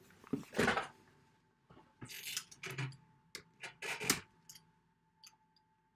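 A few scattered, irregular clicks and short noise bursts close to the microphone, over a faint steady tone.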